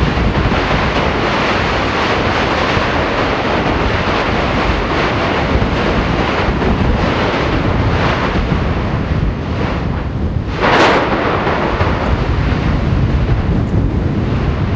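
Strombolian eruption of Yasur volcano: a steady, dense rushing noise of gas and lava fragments being blasted from the vent. A short, sharp burst of louder noise comes about eleven seconds in.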